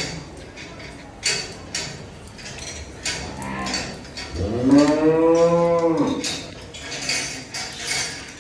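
A Kankrej bull moos once, about four seconds in, for nearly two seconds: a low call that rises in pitch and then holds. Short sharp clinks and knocks come and go around it.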